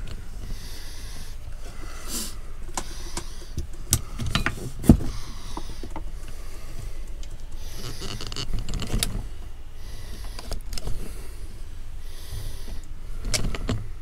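Handling noise from a camera mount being adjusted: irregular knocks, clicks and rubbing, the loudest knock about five seconds in, over a low steady hum.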